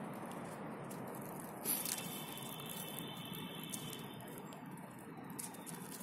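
A Eurasian red squirrel husking and eating sunflower seeds at close range: faint irregular clicks and crackle, with one sharper click about two seconds in, over a steady background hiss.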